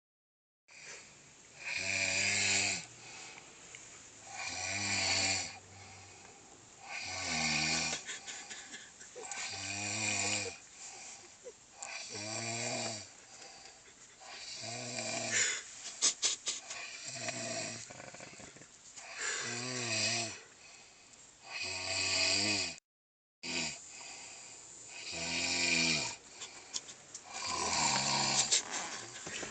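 Steady, rhythmic snoring: one loud snore about every two and a half seconds, with quieter breathing between. A few clicks come in the middle, and the sound drops out briefly near the end.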